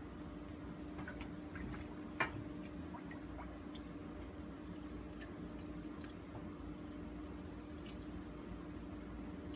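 Water dripping and splashing in a stainless steel sink as an endoscope and its coiled tubing are handled, with scattered small clicks, the sharpest about two seconds in. A steady hum runs underneath.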